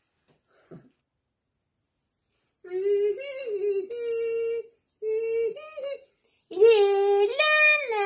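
A high voice sings a short tune in long held notes, beginning about two and a half seconds in, after a nearly silent start.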